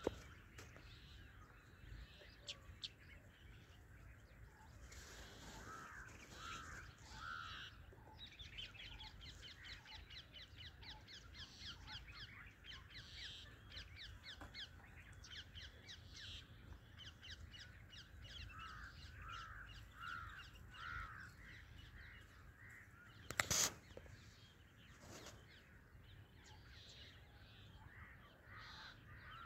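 Grey francolin calling: groups of three rising-and-falling notes, with a fast run of high ticking notes in between. One sharp knock comes about three-quarters of the way through.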